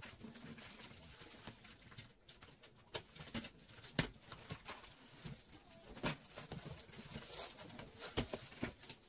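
Cardboard shipping box being worked open by hand: scraping and rustling of cardboard and tape, with a few sharp knocks and snaps, the loudest about four seconds in and near the end.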